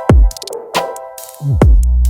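Electronic background music: synth chords over deep, falling 808-style kick drums and quick hi-hat ticks, with a long booming bass note from about one and a half seconds in.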